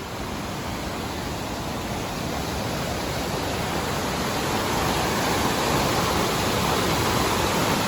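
River water rushing with great force, a steady rushing noise that grows gradually louder over the seconds.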